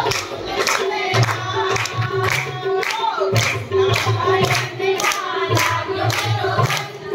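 Devotional group singing (bhajan) with music, the congregation clapping in time at about two to three claps a second.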